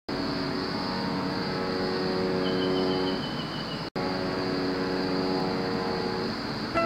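Steady engine drone with a low, even hum and a constant high whine above it, cut off for a moment just before the four-second mark and then resuming.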